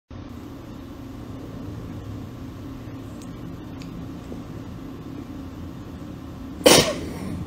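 Steady low room hum, then near the end one loud, short, sudden sound as a cockatoo strikes at a fly on a wooden desk.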